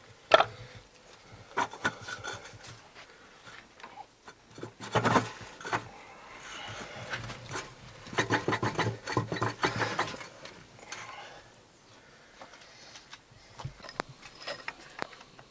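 Irregular metal clicks, knocks and scraping from repair work on an opened tractor gearbox, with a sharp knock just after the start, a loud cluster about five seconds in, and a run of rapid rasping clicks from about eight to ten seconds in.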